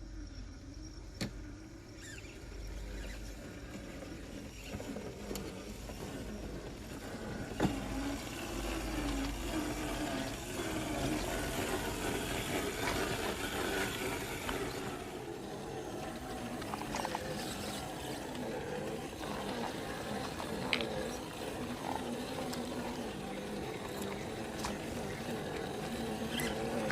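Scale RC crawler with a brushed electric motor working through a rocky creek: the motor and gears whine, rising and falling with the throttle, over running, splashing water, with a few sharp knocks of tyres or chassis on rock.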